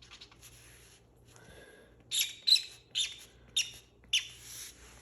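Felt-tip marker squeaking on paper in about five quick, short strokes, bunched in the second half, after some fainter scratching.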